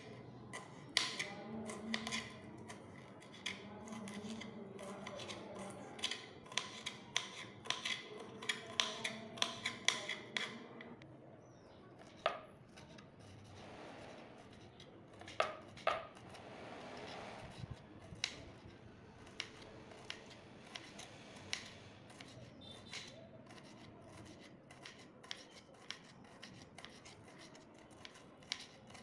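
Serrated kitchen knife dicing bitter gourd on a wooden cutting board: quick, repeated taps of the blade striking the board. The chopping is busiest and loudest in the first ten seconds, thins out in the middle, and turns faster and fainter near the end.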